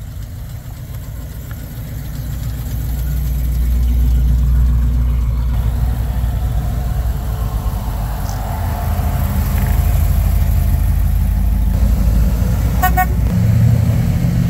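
Classic cars' engines rumbling low and steady as they drive slowly past, growing louder over the first few seconds. A car horn gives one short toot near the end.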